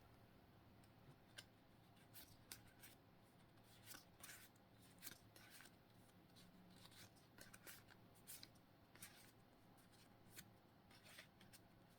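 Faint, scattered rustles and light clicks of Pokémon trading cards being handled and flipped through, one card after another.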